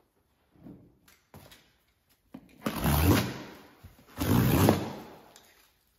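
Yellow box cutter slicing and ripping through plastic stretch wrap over a cardboard box: two long tearing strokes of about a second each, after a couple of light clicks and knocks.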